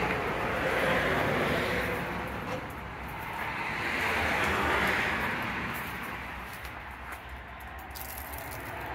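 Road traffic passing by: a broad rushing noise that swells twice as vehicles go past and fades away near the end.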